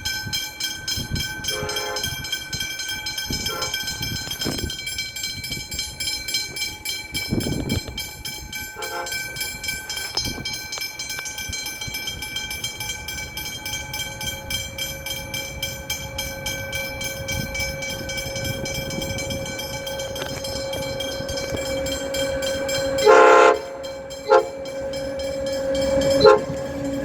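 Fast freight train passing at speed, its wagons' wheels beating rhythmically over the rail joints with a steady metallic ringing. Near the end a locomotive horn sounds three short blasts.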